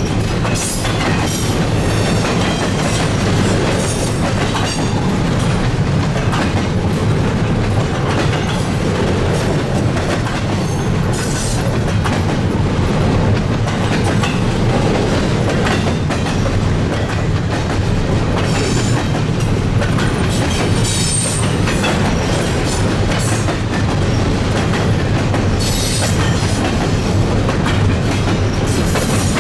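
Freight train cars rolling steadily past, their wheels clattering over the rail joints, with brief high-pitched streaks of wheel noise every few seconds.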